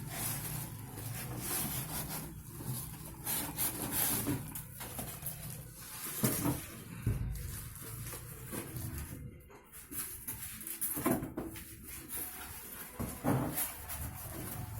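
Packaging being handled while a manual cup sealer machine is unpacked: irregular rustling with scattered knocks and clicks.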